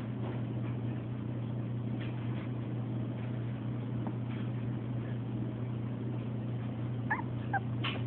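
Young puppy giving two short, high squeaky whimpers about seven seconds in, over a steady low hum.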